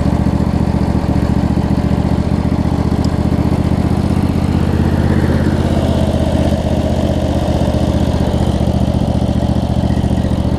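A 25 hp Briggs & Stratton V-twin engine on a Craftsman DLT riding mower running steadily at an even speed, and running well.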